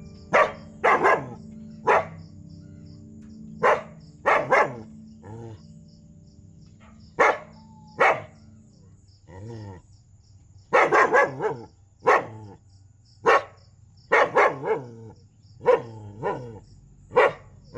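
Street dog barking loudly in short single barks and quick pairs and triplets, with pauses of a second or two between groups.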